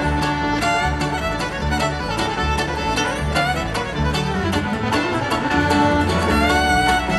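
Live bluegrass band playing an instrumental break, with a fiddle playing sustained lines over acoustic guitar and a steady upright-bass pulse, heard through the arena's sound system from the crowd.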